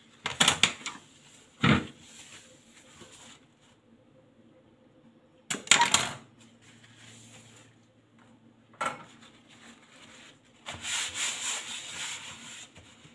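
A few short knocks and clatters as a plastic blender jar and kitchen things are handled and set down, then a hand rubbing across a plastic cutting board for about two seconds near the end.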